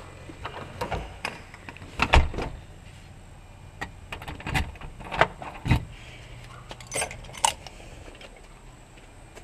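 Front door being pulled shut and its brass knob handled: a series of knocks and latch clicks, the loudest about two seconds in, followed by a few sharp metallic clinks near the end.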